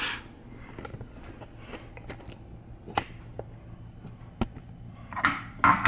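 Scattered light clicks and knocks of things being handled, with a brief, louder rustle about five seconds in.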